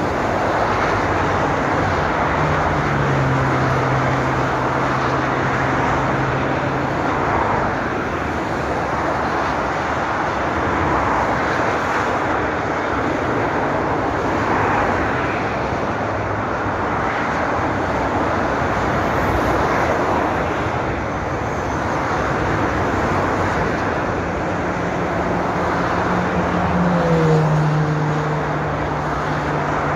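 Steady rush of motorway traffic: continuous tyre and engine noise from cars passing at speed in both directions. A low engine hum from a passing vehicle stands out a few seconds in and again near the end, loudest just before the end.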